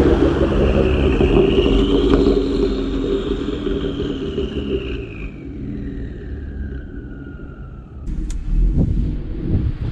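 Straight-piped 3.5 L EcoBoost twin-turbo V6 of a 2018 Ford Explorer Sport, with catless downpipes, an X-pipe and a Borla S-Type cat-back, driving past close and pulling away. The exhaust is loudest at the pass and fades as the vehicle goes, with a high whine falling in pitch. About eight seconds in, the sound changes suddenly to a louder, closer rumble of the exhaust revving.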